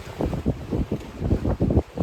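Lake waves splashing against the shore, with wind buffeting the microphone in uneven low gusts.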